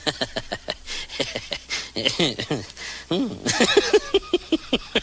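Rapid run of short animal calls, many sliding down in pitch.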